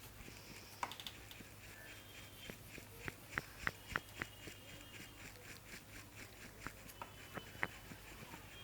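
Oil pastel stick working on paper while blending white, heard as quiet, irregular light taps and clicks, with a cluster of them about three to four seconds in.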